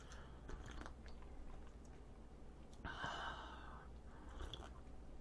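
Faint sips of hot americano from a mug, with a few small clicks and one breathy, sigh-like exhale about three seconds in.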